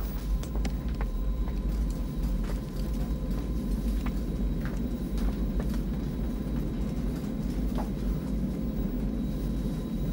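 Steady low rumble of a jet airliner's cabin interior in flight, with a faint steady hum over it and a few small scattered clicks.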